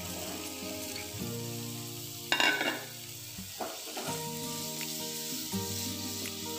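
Marinated paneer cubes sizzling as they fry in melted butter in a nonstick pan, with a louder burst of sizzling a little over two seconds in as the rest of the cubes land in the hot pan.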